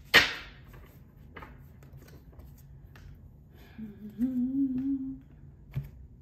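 A sharp slap of cards on the tabletop, then about four seconds in a woman hums a short, slightly rising note for about a second and a half; a light tap of a card follows near the end.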